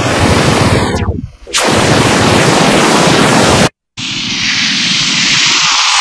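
Image sonification made with Photosounder: a picture played back as sound, heard as a loud, dense hiss and rumble with sweeping edges as the shapes of the image pass. It cuts out for a moment a little past halfway, then comes back as a brighter hiss with less low rumble.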